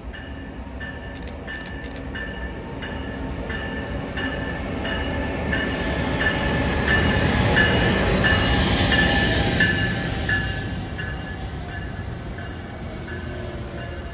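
Amtrak Siemens ACS-64 electric locomotive and Amfleet coaches passing close by on the station track. A bell rings about twice a second throughout. The rumble grows loudest as the locomotive draws level about halfway through, then eases to the coaches' wheels rolling past.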